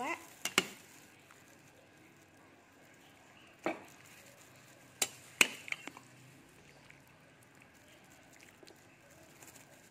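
Metal ladle knocking and clinking against a steel pot and a ceramic bowl while soup is ladled out: a few short, sharp clinks in clusters near the start, about four seconds in and around five to six seconds in, with quiet in between.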